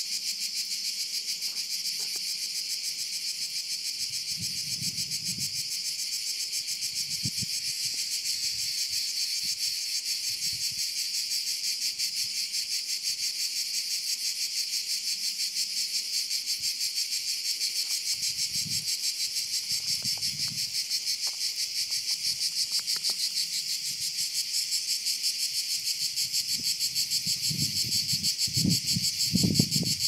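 Cicadas singing in chorus: a steady, high, rapidly pulsing buzz. A few soft low rumbles sit beneath it, more of them near the end.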